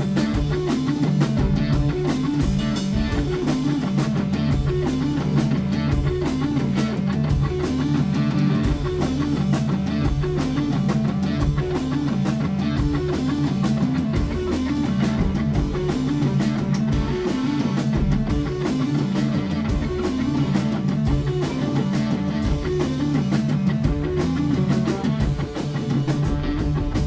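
Live rock band playing loudly: distorted-sounding electric guitars repeat a riff over a drum kit pounding out a busy, steady beat.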